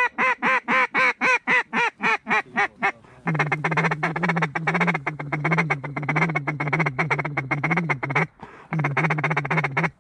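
Duck call blown by a hunter: a run of about fourteen loud quacks, about five a second, then a long rapid feeding chatter that breaks off briefly and starts again near the end.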